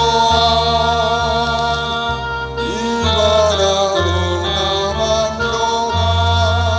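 A hymn sung slowly in Batak Toba over sustained instrumental accompaniment, with the bass changing note about once a second.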